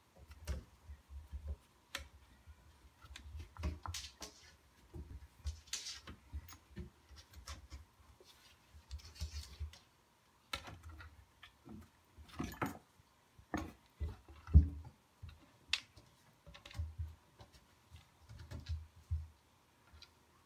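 Bengal cat pawing at cupboard doors to open them: claws scratching and tapping on the doors, and the doors knocking and rattling against their frames in irregular clicks and knocks. The loudest knocks come in a cluster about two thirds of the way in.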